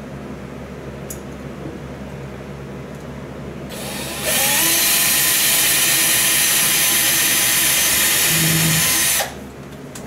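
Handheld electric drill drilling a pilot hole into a wall for a mounting screw. It spins up about four seconds in, runs steadily for about five seconds, then stops.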